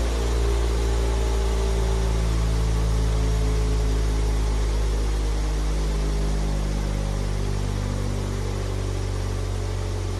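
WEN 8-inch bench grinder running, its motor and two grinding wheels giving a steady hum. The wheels are still a little out of true, so some vibration remains.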